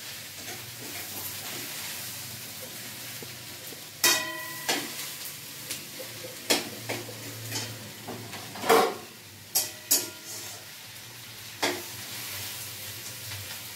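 Sliced onions sizzling in hot oil in a metal wok while a metal spatula stirs them, knocking and scraping against the pan several times. The sharpest clanks come about four and nine seconds in.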